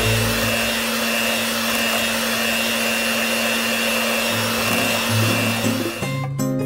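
Electric hand mixer running steadily with a whine, its beaters whipping thick cream-cheese cheesecake batter in a bowl. It cuts off about six seconds in and guitar music takes over.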